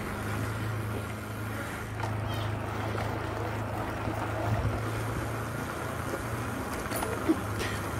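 Wind on the microphone and road noise from a bicycle being ridden along a paved road: a steady rushing with a low hum underneath, and one sharp click about seven seconds in.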